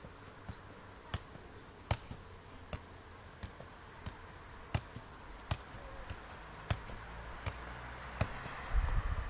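A football being juggled by foot: a sharp tap at each touch, about one every three-quarters of a second, around a dozen in all. A low rumble rises near the end.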